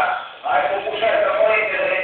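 A man singing, with music behind him; the voice holds drawn-out notes after a short pause about half a second in.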